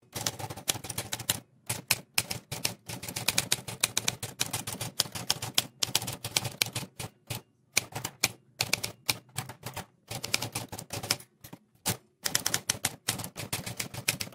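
Typewriter typing sound effect: rapid, uneven clacking of keystrokes, broken by a few short pauses.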